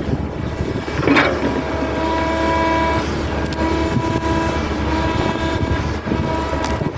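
Hitachi hydraulic excavator running under load: a steady low engine hum with a short screech about a second in, then a steady whine at several pitches from about two seconds in.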